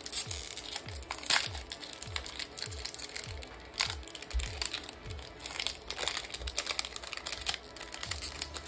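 Crinkling and rustling of Pokémon trading cards and a foil booster-pack wrapper being handled, with sharp clicks. Under it runs background music with a low bass beat about twice a second.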